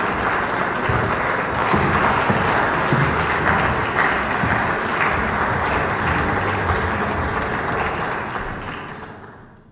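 Concert audience applauding steadily, greeting the soloist as she comes on stage; the applause dies away over the last couple of seconds.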